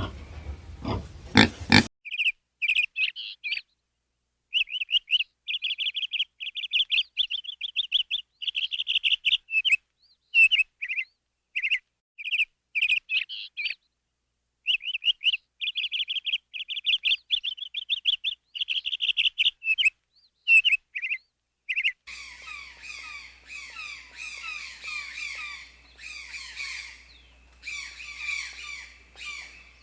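Birds chirping in quick rapid trills, in bursts with short silent breaks. Near the end it changes to a denser chorus of chirps over a low steady hum. A louder, deeper animal sound fills the first two seconds before the chirping starts.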